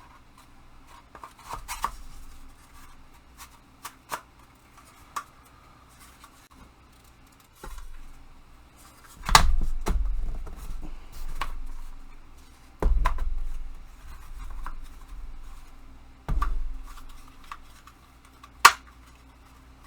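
Parts of a hobby tool storage rack being handled and pushed into place: scattered light clicks and scrapes, a few heavier knocks about nine, thirteen and sixteen seconds in, and a sharp snap near the end.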